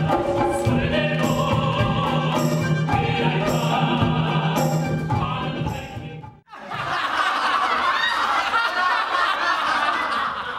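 A chorus of voices singing together over a live ensemble of traditional instruments, cut off suddenly about six seconds in. Then a crowd of voices breaks into loud, boisterous stage laughter.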